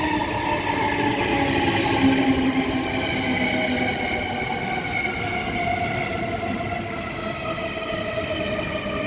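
South Western Railway suburban electric multiple unit pulling into the platform. Its traction motors whine in several tones that fall steadily in pitch as the train slows, over the rumble of its wheels on the rails.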